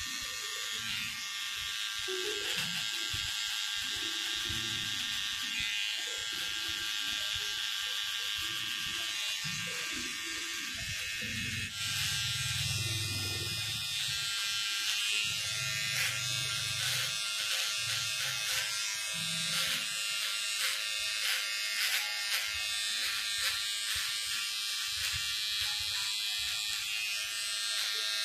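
Electric hair clipper buzzing steadily as it cuts short hair at the sides and nape of a man's head. About twelve seconds in its sound turns brighter, with many short clicks as the blades work through the hair.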